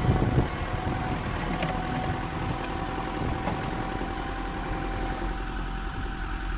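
Motor vehicle engine running steadily, with a thin steady whine held through most of the stretch.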